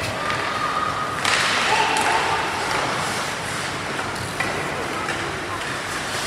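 Ice hockey play heard from the stands of an indoor rink: skates scraping, and sticks and puck knocking on the ice, over a steady hall hum and faint spectators' voices. There is a louder rush of noise just over a second in and a sharp knock about four seconds in.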